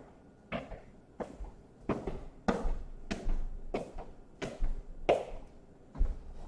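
A steady series of sharp plastic clicks and taps, about one every half second or so, from hands working on a laptop's plastic case as it is put back together.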